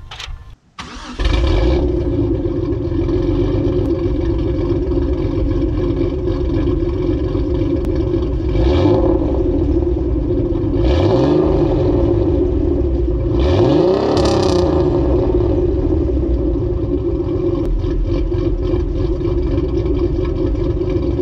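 Exhaust of a turbocharged 3.5 L V6 swapped into a 2001 Pontiac Grand Am GT, through an SLP exhaust. It starts about a second in and idles steadily, revved briefly three times: a short blip, then two larger revs that rise and fall.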